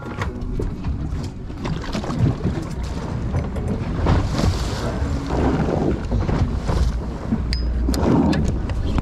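Wind buffeting the microphone over water sloshing against a boat's hull at sea, with louder rushes of water about four seconds in and again near the end.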